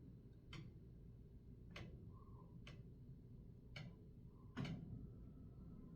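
Five faint, sharp knocks or ticks in a wall, about one a second, over near silence. He takes them for rats or mice moving inside the walls.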